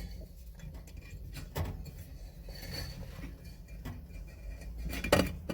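Small clicks and taps of hand work as bent-wire clamps are pushed into holes in kiln bricks to hold the heating coil, with a sharper knock about a second and a half in and the loudest one near the end, over a low steady hum.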